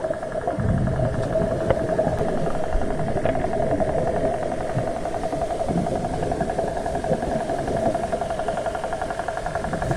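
Underwater sound: a steady motor drone carried through the water, with low rushing water noise from movement and a few faint ticks.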